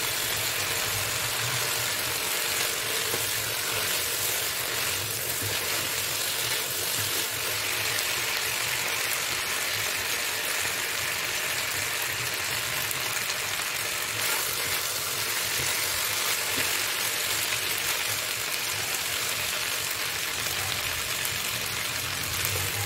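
Chicken pieces sizzling steadily in oil in a non-stick wok, stirred now and then with a silicone spatula. The water the chicken released is cooking off as it fries down toward browning.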